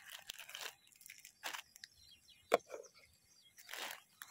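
Small food packet being handled and opened: soft crinkling and scattered small clicks, with one sharp crack about two and a half seconds in.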